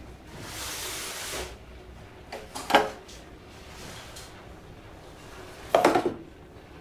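Steel cookware on a stainless-steel gas stove: a short hiss near the start, then two metal clanks with a brief ring, about three seconds apart, the second the louder.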